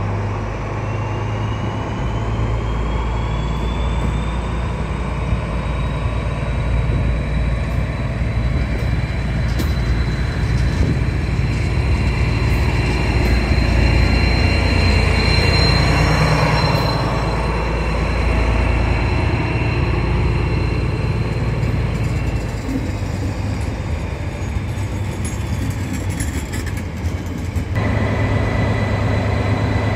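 Two DB class 218 diesel-hydraulic locomotives working in multiple pass close at low speed, engines rumbling under load with a whine that rises in pitch over the first few seconds and then holds. They are loudest about halfway through. Near the end the sound cuts to a steady low idle.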